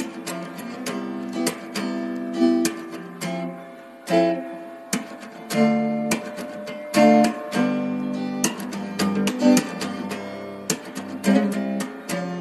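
Background music: a strummed acoustic guitar playing chords, with sharply plucked notes.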